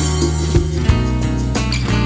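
Background music: an upbeat instrumental track with guitar and a steady beat.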